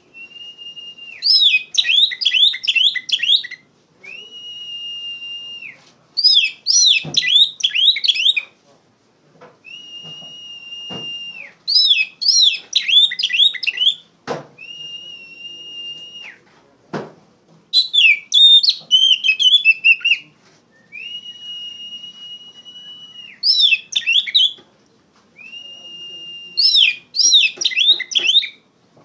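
Oriental magpie-robin (kacer) singing loudly: long steady whistled notes alternating with quick runs of rapid falling notes, phrase after phrase. A few sharp clicks fall between phrases.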